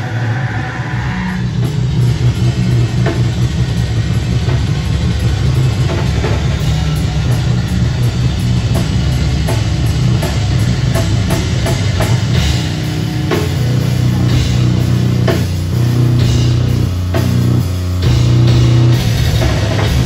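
Loud live rock band playing: a drum kit pounding out a steady beat under heavy bass and guitar.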